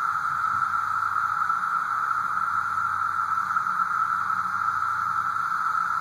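Chorus of 17-year periodical cicadas (Brood II) droning, a steady, even, high-pitched whine that holds without a break.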